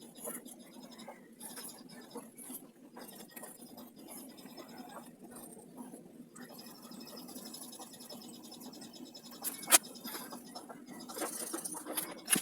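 Dark blue coloured pencil scratching in quick strokes across HVS paper while shading in, with one sharp click about ten seconds in.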